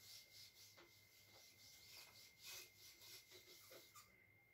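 Faint rubbing of a handheld eraser wiped across a whiteboard in quick, irregular strokes, stopping about four seconds in.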